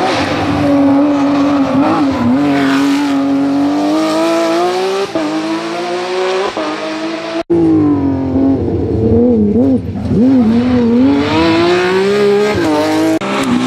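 Porsche 911 GT3 rally car's flat-six engine at high revs, climbing through the gears with quick drops in pitch at each upshift. After an abrupt break about halfway, the revs dip and flare in rapid blips before climbing hard again.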